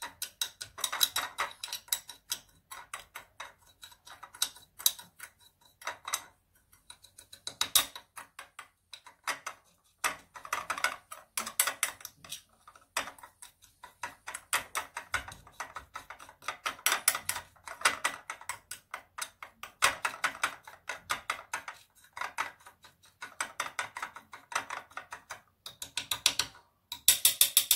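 Small metal teaspoon stirring and scraping a gritty mix of ground coffee and sugar with a little oil in a glass dish: rapid runs of light clicks and scrapes against the glass, in bursts with short pauses.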